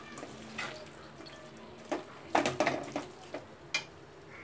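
Metal slotted spatula scraping and knocking against a hammered metal kadai as chopped vegetables are stirred into a thick masala, in a few separate strokes with the busiest stretch around the middle.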